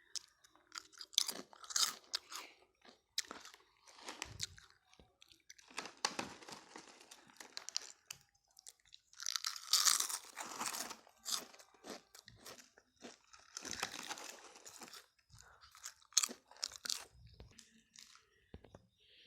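A person chewing a crunchy herbal snack: irregular runs of crisp crunching bites with short pauses between them.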